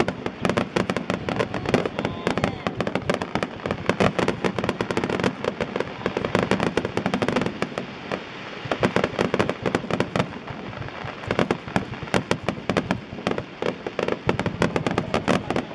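Fireworks display: shells bursting one after another in a dense, continuous run of sharp bangs and crackles with no real pause.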